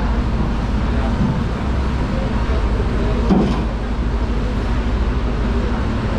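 Steady low rumble of background noise, with a short knock about three seconds in.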